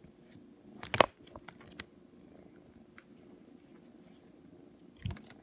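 Domestic cat purring faintly and steadily. Trading cards being handled give one sharp click about a second in, then a few lighter clicks, and there is a soft thump near the end.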